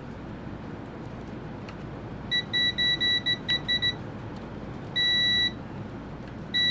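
Digital multimeter beeping as its probes are held across diodes in a power supply: a quick stutter of short beeps as the probes make and break contact, then two steadier half-second beeps, all at one high pitch over a steady hiss.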